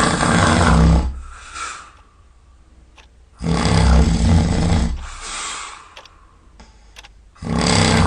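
Loud snoring: a long snore about every four seconds, each trailing off into a softer breath.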